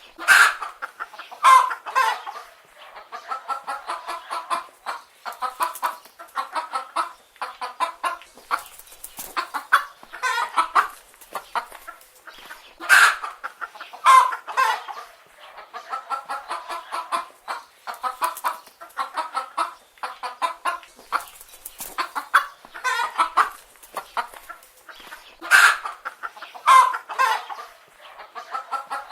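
Chicken hens clucking continuously, with a few louder calls standing out now and then.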